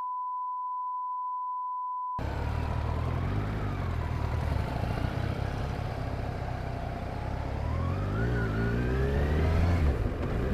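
A steady electronic beep tone sounds for about two seconds and cuts off abruptly. Then a motor vehicle engine runs with road noise, its pitch rising about eight seconds in as it speeds up.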